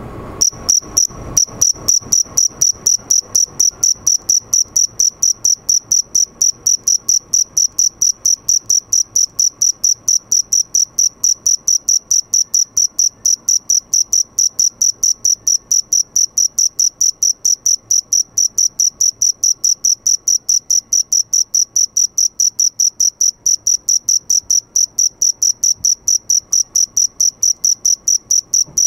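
A male field cricket singing with its forewings raised: a steady run of short, high-pitched chirps, about four a second, starting about half a second in.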